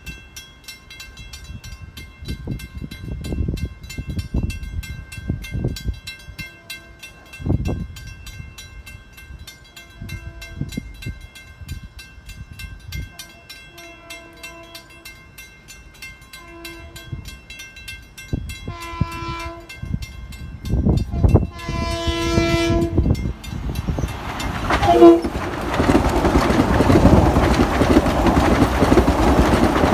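A grade-crossing bell dings steadily while a Long Island Rail Road electric passenger train approaches. The train's horn sounds a short blast about 19 seconds in and a longer one a couple of seconds later. The train then passes at speed, with a loud rushing rumble and clatter of wheels on rail.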